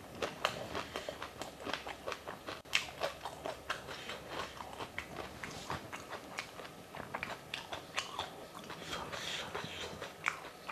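A person chewing a full mouthful of fuchka (pani puri): a steady run of small, irregular crunching clicks as the crisp puri shell and its filling are chewed with the mouth closed.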